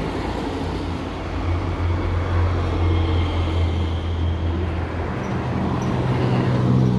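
Motor vehicle on the adjacent road: a steady low engine hum over a noisy hiss, the hum moving to a somewhat higher pitch about five and a half seconds in.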